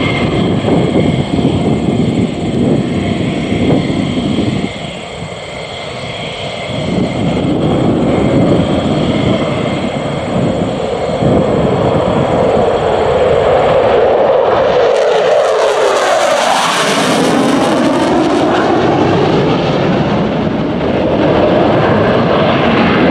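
McDonnell Douglas F-15 Eagle fighter taking off in afterburner and flying a low, fast pass before climbing away; its twin jet engines make a loud, continuous roar. The sound builds after a brief dip early on and is loudest and harshest around fifteen to eighteen seconds in, with a sweeping, phasing whoosh as the jet passes close. It then stays loud as the jet climbs out.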